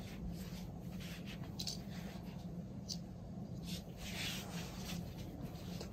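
Legs rolling over a knobbed plastic massage roller: soft, irregular rubbing swishes of skin and fabric against the roller, over a steady low hum.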